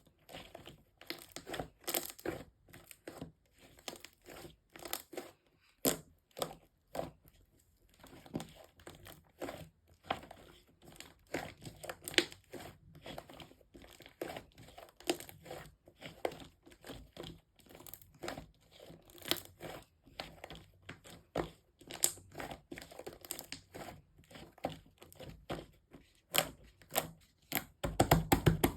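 Hands working slime, making irregular crackling and popping clicks as it is pressed and stretched; near the end the crackling turns louder and denser.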